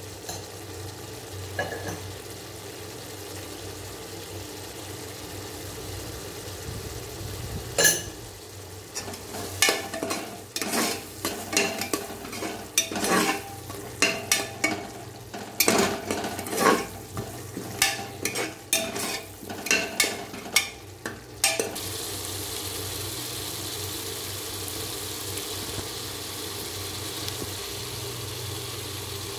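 Metal ladle stirring a masala in a pressure cooker, with many quick knocks and scrapes against the pot from about eight seconds in until just past the middle. A steady sizzle-like hiss runs underneath, and after the stirring stops it turns into a brighter, even hiss.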